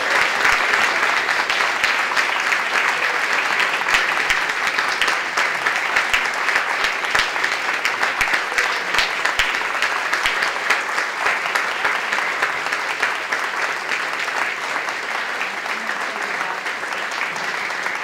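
A roomful of people giving a standing ovation: steady clapping that gradually grows softer toward the end.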